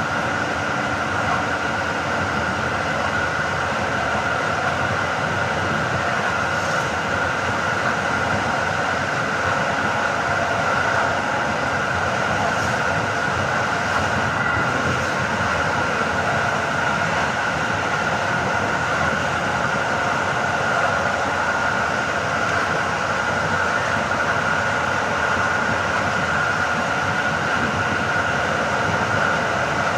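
A PKP Intercity train running at speed, heard from inside the carriage: a steady rolling rumble and hiss of wheels on rail, with a constant high tone held above it.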